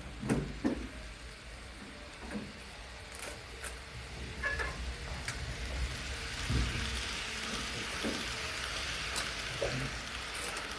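Model E1 series Shinkansen train running on its track, a hissing rattle of wheels and motor that grows louder from about halfway through as it comes around the loop. A few sharp clicks sound near the start.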